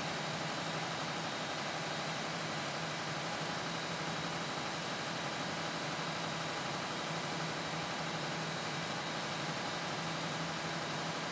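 Steady drone of machinery running in a ship's engine room, an even low hum with faint high whine-like tones, unchanging throughout.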